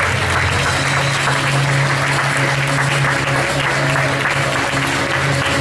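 A crowd applauding over music with a low, held bass note.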